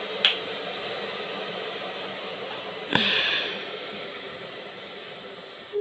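Steady hiss of water being heated, with two sharp clicks, one about a third of a second in and a louder one about three seconds in; after the second click the hiss slowly fades.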